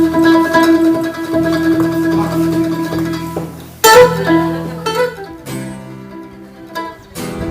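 Background music led by plucked string instruments, with a sudden loud chord about four seconds in, after which it grows quieter and sparser.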